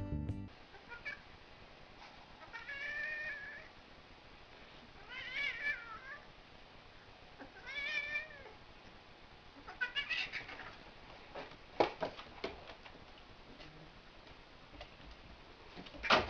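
Domestic cat meowing: four drawn-out, wavering meows a couple of seconds apart, followed by a few sharp knocks.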